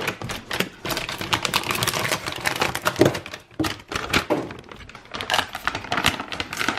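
Dogs' feet in baby socks scrabbling and running on a hard floor: a quick, irregular patter of taps and knocks.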